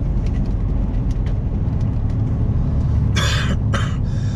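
Vehicle engine and road noise while driving, a steady low drone. About three seconds in come two short bursts of rushing hiss.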